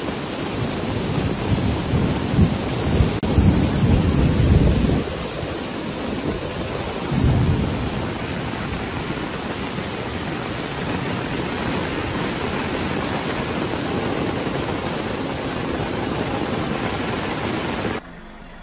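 Heavy rainstorm: a dense, steady hiss of pouring rain with wind, swelling into louder low rumbles from about two to five seconds in and again around seven seconds. It drops away suddenly near the end.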